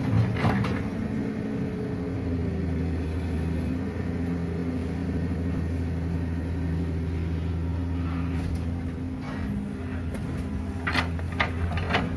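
Heavy diesel engine running steadily while a Hitachi EX200LC hydraulic excavator loads sand into an Isuzu Elf dump truck, with a few sharp clanks about half a second in and again near the end.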